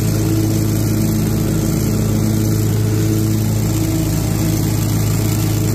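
Toro ProLine 60-inch mower's engine running steadily at working speed, with its blower attachment driving leaves into the collection bucket. The engine holds one even pitch, with no revving or stopping.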